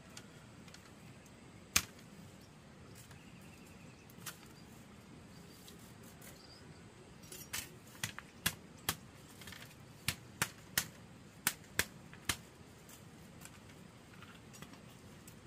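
Sharp knocks of a hand tool striking building material: two single strikes in the first few seconds, then a run of about a dozen irregularly spaced strikes from about halfway through.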